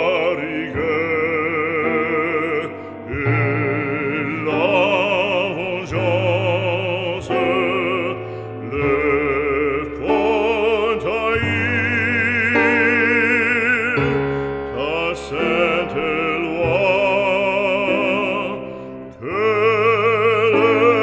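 Operatic singing with a strong vibrato over a sustained accompaniment: background music.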